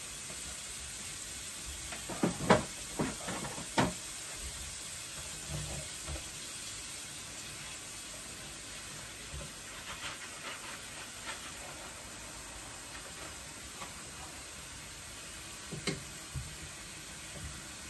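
Dishes being washed by hand at a kitchen sink: a handful of sharp clinks and knocks of dishware about two to four seconds in, a few fainter ones later and two more near the end, over a steady hiss.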